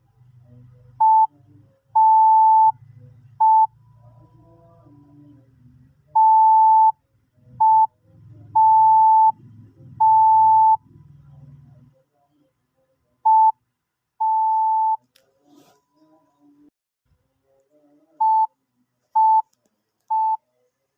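Morse code practice tone: short and long beeps (dits and dahs) at one steady pitch, sent in irregular groups with pauses between letters. A faint low hum lies under the first half.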